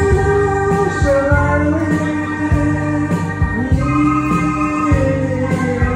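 Live electronic keyboard music from a stacked synthesizer rig: long held chords and melody lines, some sliding in pitch, over a drum beat.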